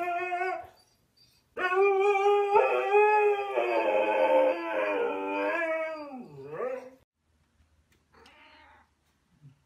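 Husky howling: one howl trails off just after the start, then after a short pause comes one long howl of about five seconds that wavers and dips low at its end. A short faint sound follows near the end.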